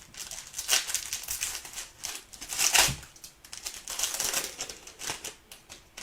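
Baseball card pack being opened by hand: irregular crinkling and rustling of the wrapper and cards, with a sharper crackle about three seconds in.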